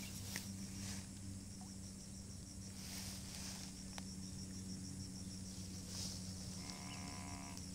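Insects trilling steadily in a high, thin band that swells every couple of seconds, over a low steady hum. A short faint call is heard near the end.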